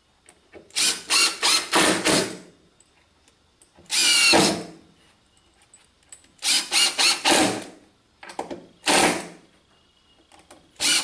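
Cordless driver driving screws into a board in about five short runs, each a second or so long and stuttering as the trigger is pulsed, with the motor whirring up in pitch in one run.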